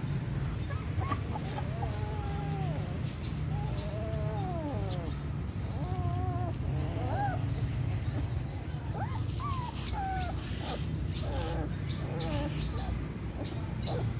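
Young puppies whimpering and whining, many short high calls that bend up and down in pitch, one after another, over a steady low rumble.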